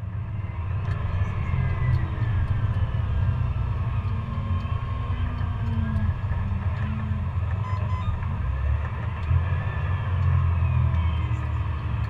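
Steady low drone of a John Deere S680i combine harvester's engine and threshing machinery, heard inside the cab while harvesting, with faint whines that drift slowly up and down in pitch.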